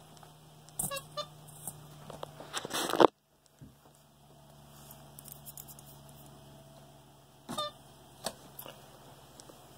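A capuchin monkey handling a plasma ball on a shelf: scattered clicks and knocks, a few short squeaks, and a louder rustling scrape about three seconds in that cuts off suddenly, followed by a low steady hum.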